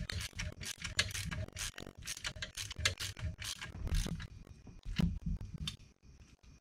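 Crankshaft of a 1776 cc VW Type 1 short block being turned by hand in the freshly bolted case halves: a quick run of irregular clicks and clacks from the internals that stops near the end. The crank is being turned to check it still rotates freely after the case nuts are snugged.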